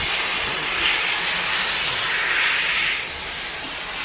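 Steam locomotive letting off steam: a loud, steady hiss that swells and eases, then drops quieter about three seconds in.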